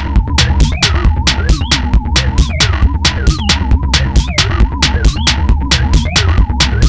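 Electronic music played on a small Korg volca synthesizer: a drum-machine beat of quick, evenly spaced ticks over a steady deep bass, with a wavering synth melody line.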